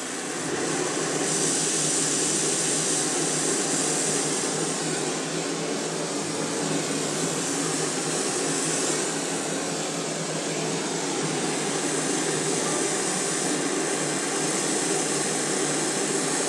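Oxyacetylene torch burning with a steady hiss. Its flame has too sharp an inner cone, not yet set to a neutral flame.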